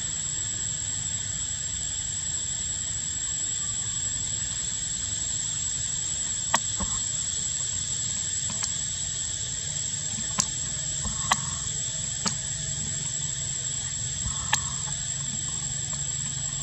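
A steady high-pitched whine over a low hum, with about six short sharp clicks scattered through the second half.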